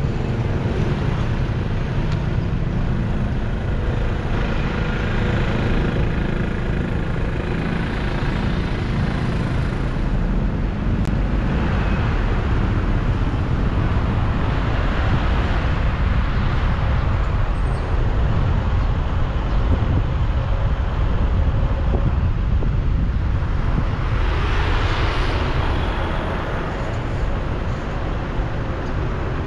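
Road traffic: a steady low rumble, with several vehicles passing by, each swelling and fading.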